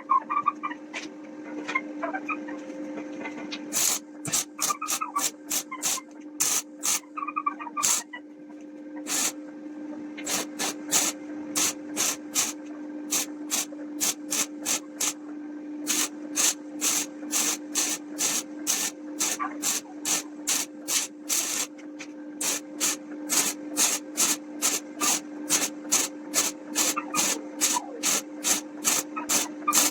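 Rhythmic rasping strokes of a hand tool working wood, about two a second, over a steady hum.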